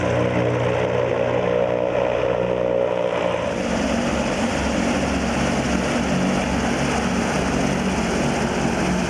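Zeppelin NT airship's propeller engines running steadily with a droning hum. The tone shifts about three and a half seconds in.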